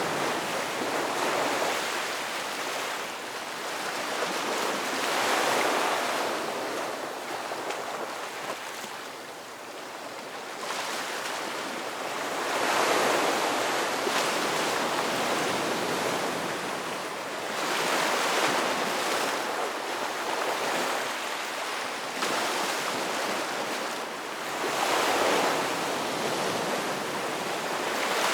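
Ocean surf: waves breaking and washing up the beach, the rush swelling and fading every five or six seconds.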